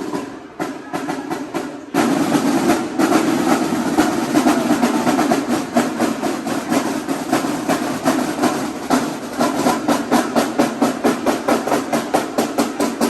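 Marching band drumline playing a fast, steady run of drum strokes, louder from about two seconds in.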